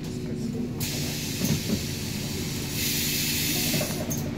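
City bus engine humming steadily from inside the cabin, with a hiss of compressed air from the bus's air system. The hiss starts sharply about a second in and grows louder for about a second near the end.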